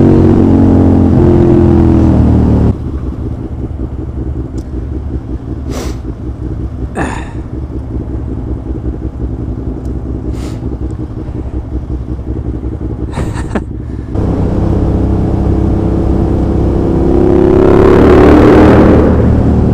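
Suzuki SV650's V-twin through a de-baffled SP Engineering stubby exhaust. The note falls as the bike slows, then the engine idles for about ten seconds, then the revs climb as it pulls away. The note rises and grows louder near the end, echoing in a tunnel.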